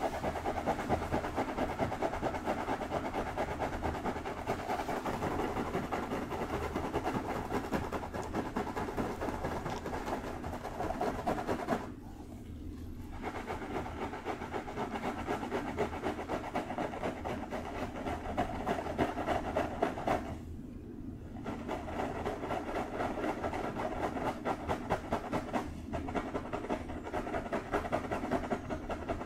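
Fingertips and nails scratching and rubbing through long hair on a scalp, a dense close-up scratching that stops briefly twice.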